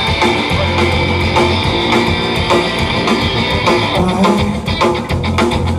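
A live rock band playing an instrumental passage: electric guitar over a drum kit.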